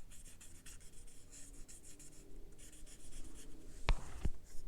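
Water pen tip stroking across a water-reveal card, a soft scratchy rubbing, then two sharp taps close together near the end.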